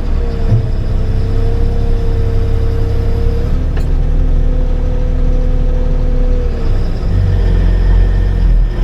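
John Deere 8560 tractor's diesel engine running under load while pulling a truck out of the mud. Its steady whine steps up in pitch about three and a half seconds in, and the engine strains harder, with a deeper rumble, near the end.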